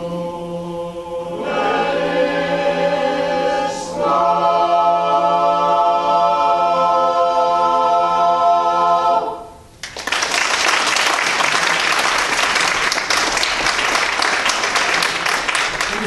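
Men's barbershop chorus singing a cappella in close harmony, ending on a long held chord that is cut off about nine and a half seconds in. Audience applause follows for the rest.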